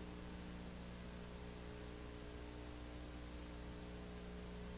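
A gap in the soundtrack holding only a low, steady electrical hum with a faint even hiss: mains hum and noise from the recording chain, with no sound from the scene.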